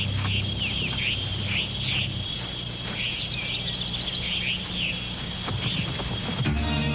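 Birds chirping in short repeated calls, about two a second, over a steady low drone and a thin steady high tone. Music comes in near the end.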